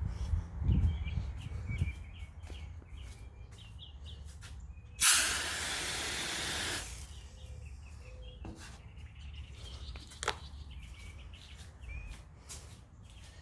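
A can of −60-degree freeze spray (an "ice gun") gives one sudden loud hiss of spray, about a second and a half long, about five seconds in. Birds chirp in the background throughout, and a single sharp click comes about ten seconds in.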